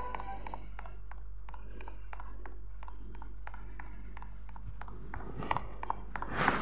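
Irregular light clicks and taps, about two or three a second, over a steady low hum, with a louder cluster of taps near the end.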